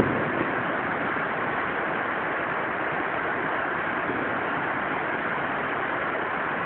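Steady hiss-like background noise at an even level.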